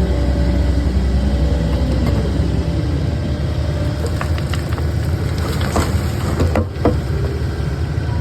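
Takeuchi skid steer's diesel engine running steadily under work, with a few sharp metallic clanks about four to seven seconds in.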